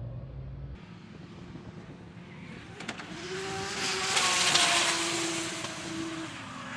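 Drift car sliding past with its engine held at high revs and tyres squealing, swelling to its loudest around the middle and then fading away. A fainter engine is heard before it.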